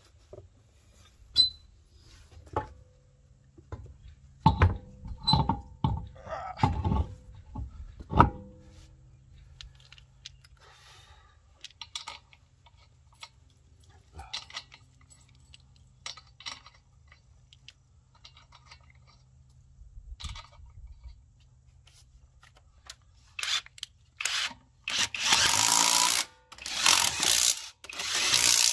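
Scattered metal knocks and clanks as a road wheel is hung on the hub and its wheel nuts are started. Near the end an impact wrench (rattle gun) runs the wheel nuts on in several loud bursts.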